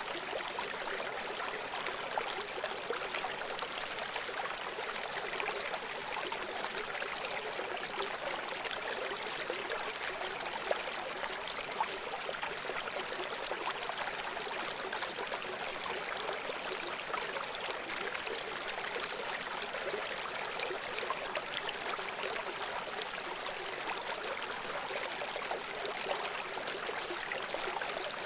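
Small stream running over stones, a steady babbling and trickling of water.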